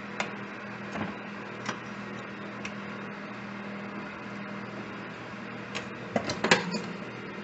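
Air fryer oven running with a steady fan hum, while a spatula clicks and scrapes against the wire rack under a pizza; a louder clatter of knocks about six seconds in as the pizza is lifted and flipped.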